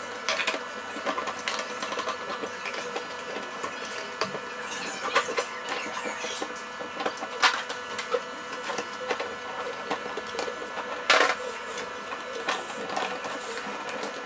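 Plastic clicks, taps and rubbing as the two plastic halves of a Yuneec ST10 controller are pressed together and its rubber side grips fitted, with two sharper snaps about seven and eleven seconds in. A steady hum runs underneath.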